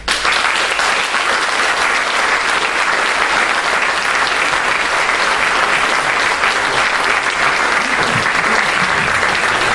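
Audience applauding, starting abruptly and holding steady.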